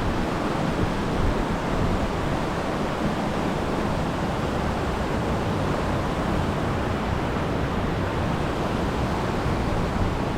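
Steady rush of high, rising river water pouring through a flooded spillway.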